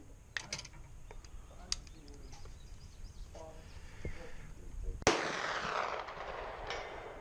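A few light clicks as the rifle is handled, then, about five seconds in, one loud report from a .45-70 black-powder Pedersoli 1874 Sharps reproduction single-shot rifle. The report rings on for about two seconds, and a fainter sharp sound follows about a second and a half after it.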